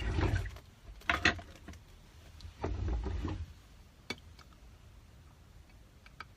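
Handling noises as seafood sauce is added to food: three short bouts of rustling and scraping in the first half, then a few light clicks.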